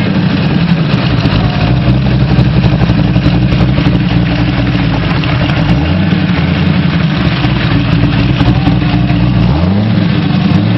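Factory Five GTM's engine running on the move under a steady rush of wind and road noise, its pitch rising as it accelerates about six seconds in and again near the end.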